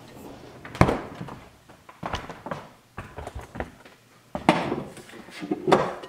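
Kitchen handling noises: a glass storage bowl with a plastic lid is taken from the fridge, set down on the counter and its lid pulled off, making about five sharp knocks and clunks with lighter clicks between.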